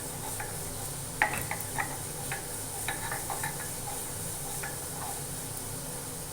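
Kitchen work: irregular light knocks and scrapes, about ten of them, the sharpest a little over a second in, over a faint steady hiss.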